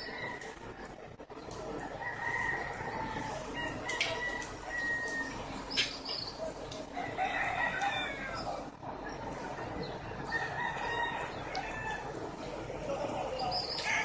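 A rooster crowing, once about halfway through and again near the end, with thin whistling bird calls in between.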